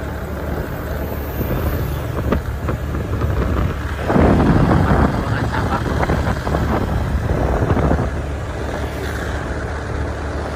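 Motorcycle engine running on the move, heard from the pillion seat with wind and road noise, growing louder for a stretch about four seconds in.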